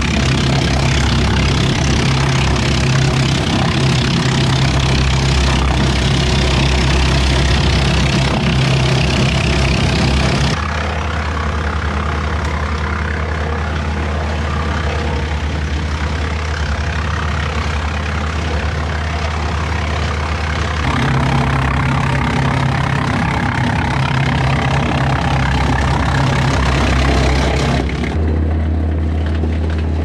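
The diesel engine of a 40 hp Kioti tractor runs steadily, driving a Woodland Mills WC68 PTO wood chipper. For about the first ten seconds, and again for several seconds later on, the chipper is grinding sawmill slabs into chips. In between it spins empty, with only the even engine and rotor hum.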